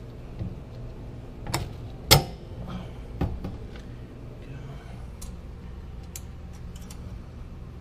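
Metal parts clinking and knocking as bolts are fitted and hand-tightened where a surface cleaner's metal wand meets its deck. There are a few sharp knocks in the first few seconds, the loudest about two seconds in, then lighter ticks.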